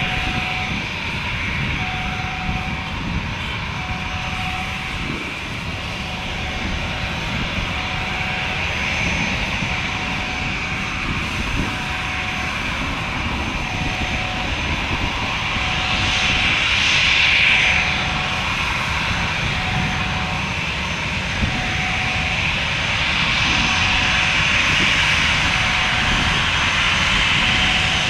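Airbus A320-family airliner taxiing, its jet engines running with a steady whine that swells loudest about two-thirds of the way through as the aircraft turns. A faint short beep repeats roughly every one and a half seconds underneath.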